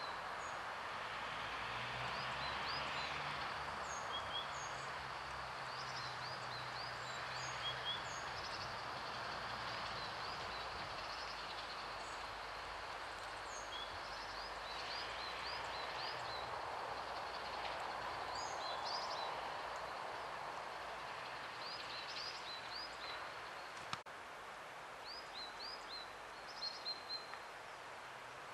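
Woodland ambience: small birds giving many short, high-pitched chirps over a steady rushing background, with a faint low drone in the first half and a single sharp click late on.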